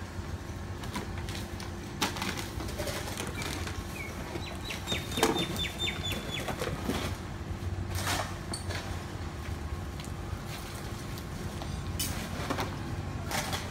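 Rakes and brooms scraping and raking rubbish across a concrete lane, with irregular scrapes and clatters of debris, the loudest at about 2, 5, 8 and 12–13 seconds in, over a steady low urban hum. About five seconds in, a quick run of high ticks lasts roughly two seconds.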